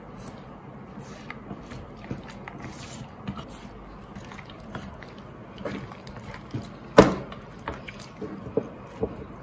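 Chef's knife deboning a raw turkey leg on plastic cutting boards: soft handling of wet meat with scattered small taps and clicks, and one sharp knock about seven seconds in.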